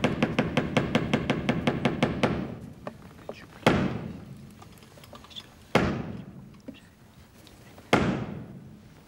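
The French theatre 'trois coups' before the curtain rises: a wooden staff (the brigadier) beaten rapidly on the stage boards, about seven knocks a second, stopping a little over two seconds in, then three single heavy blows about two seconds apart, each echoing through the hall.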